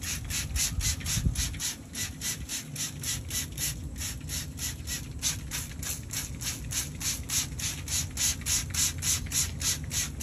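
Rotating racks of a rotisserie smoker turning, giving a regular squeaking, rasping scrape about three or four times a second over a low steady hum.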